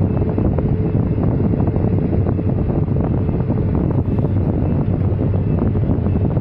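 Komatsu hydraulic excavator's diesel engine running steadily, heard from inside the cab, with a constant rattle of short clicks over the low drone.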